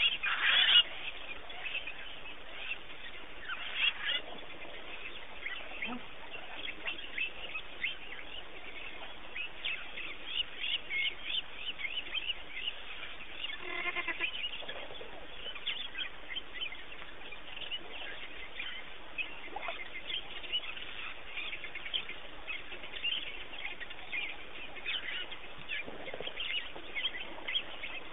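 African wild dogs twittering: a steady stream of short, high-pitched, bird-like chirps, with one longer call about halfway through.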